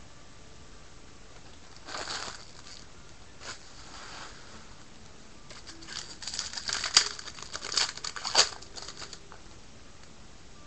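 Foil wrapper of a 2012 Bowman Jumbo baseball-card pack crinkling and tearing as it is ripped open by hand: a brief crackle about two seconds in, then a longer run of crinkling and tearing from about six to nine seconds in.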